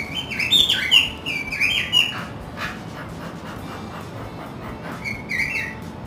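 Small caged parrot chirping: a run of quick chirps that rise and fall for about two seconds, then a shorter burst near the end.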